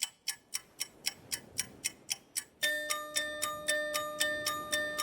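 Even clock-like ticking, about four ticks a second. A little under three seconds in, steady held musical tones join the ticking, like an intro jingle.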